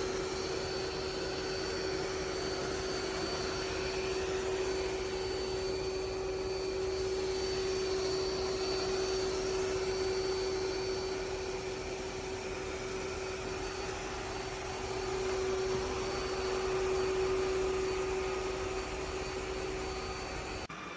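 Yeedi M12 PRO+ robot vacuum's suction motor running with a steady whine over a rush of airflow, cutting off abruptly near the end.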